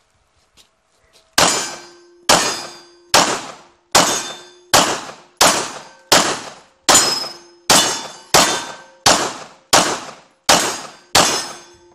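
Semi-automatic pistol fired fourteen times at a steady pace, about one shot every three-quarters of a second, starting about a second and a half in. Each report is sharp, with a short ringing tail.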